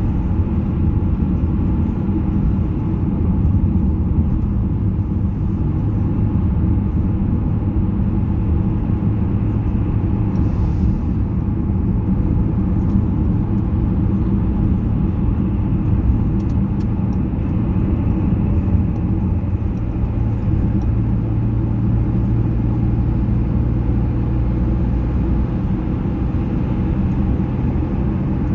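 Car driving on a motorway: a steady low rumble of road and engine noise, with a low hum that grows a little stronger about two-thirds of the way through.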